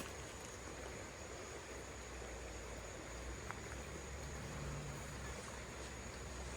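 Faint outdoor background: a steady low rumble and hiss with a thin high steady tone, and a single faint click about three and a half seconds in.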